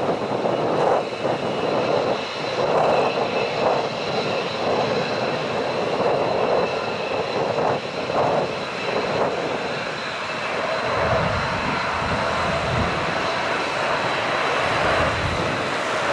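Korean Air Boeing 747-8's four GEnx turbofans on approach: a steady high whine over a rushing jet noise, with a deeper rumble building about two-thirds of the way in.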